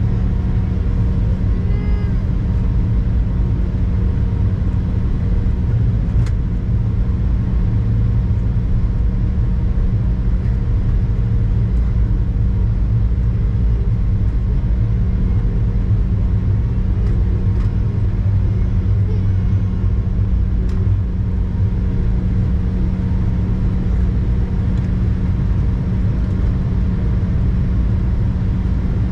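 Steady drone inside an Embraer E-175 airliner's cabin: a dense low rumble with a constant hum and a few faint clicks.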